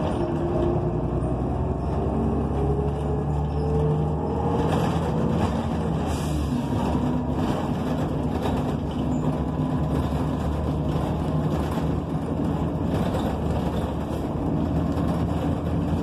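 Interior sound of a NABI 45C transit bus under way: its Cummins Westport ISL G natural-gas engine and Allison B400R automatic transmission, with a whine that rises in pitch over the first few seconds as the bus gathers speed, then running steadily with road noise.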